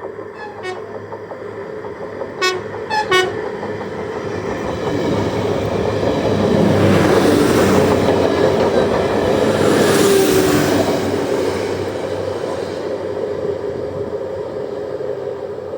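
Passenger train sounding its horn in a few short toots, two loudest blasts about two and a half and three seconds in. It then passes close by, its noise swelling to a peak in the middle and fading near the end.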